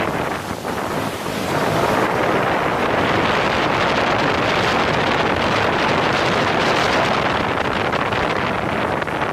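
Jet ski running fast over a river: a dense rush of wind buffeting the microphone mixed with hissing, spraying water, briefly dipping in level about half a second in.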